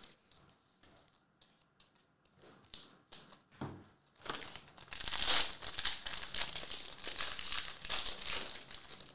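Foil wrapper of a Panini Prizm Premier League trading-card pack being torn open and crinkled, starting about four seconds in and loudest just after it starts. Before that there are faint clicks of cards being handled.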